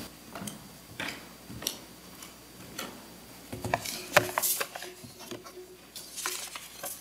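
Footsteps on the chancel, then small knocks and clicks as someone settles in at a wooden pulpit, handling things on it, with a denser cluster of clicks about halfway through.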